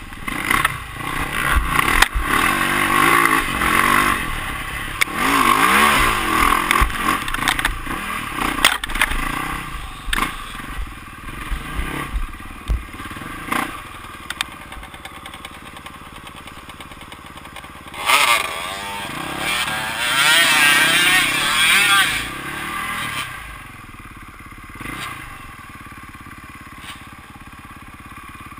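Enduro dirt bike engine revving up and down as it is ridden over a rough, muddy trail, with knocks and rattles from the bumps. It runs at low throttle through the middle, revs hard again about two thirds of the way in, then settles to a quiet, steady running.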